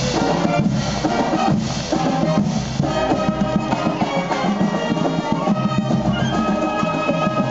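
Marching band playing as it marches past, flutes carrying the tune over a steady drum beat.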